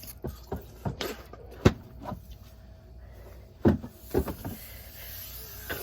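Short knocks and gulping sounds from drinking a can of soda through punched holes in the aluminium can, about ten in all, with one sharp click about a second and a half in. A soft hiss rises from about four seconds in.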